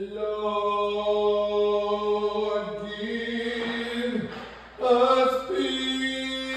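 A single voice singing long, held notes with no words, the pitch stepping up to a higher held note about five seconds in.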